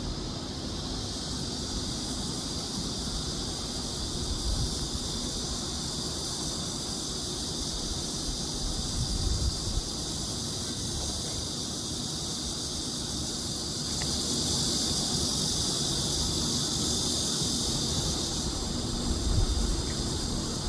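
Outdoor ambience: a steady high-pitched buzzing drone with wind rumbling on the microphone. The drone grows a little louder about two-thirds of the way through.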